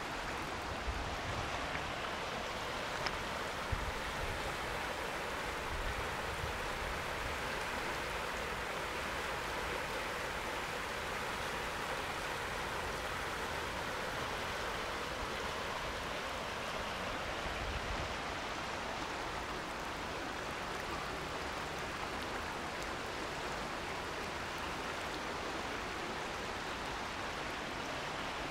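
River in flood, running high and fast, making a steady rushing hiss of fast-flowing water.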